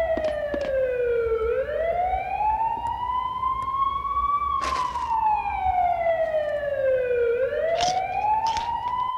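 Police siren in a slow wail, its pitch sliding down and up with each sweep taking about three seconds. A short crinkle of a chip bag comes about halfway through, and a few brief crunches follow near the end.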